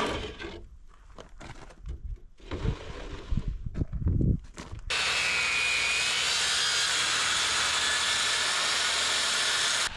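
Knocks and scraping as a strip of ZIP sheathing is handled, then, about halfway in, a circular saw cutting through the strip: a loud, steady cutting noise with a faint high whine that starts and stops abruptly.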